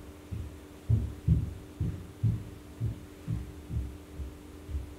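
Watercolour brush dabbing and stroking on taped-down paper, heard as soft low thumps about twice a second through the drawing board, over a steady electrical hum.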